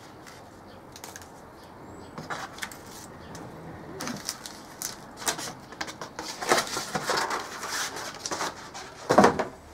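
Clear plastic bags of kit parts crinkling and rustling as they are handled and laid out on a table, with a cardboard box being moved. The rustling grows busier from about four seconds in and is loudest just before the end.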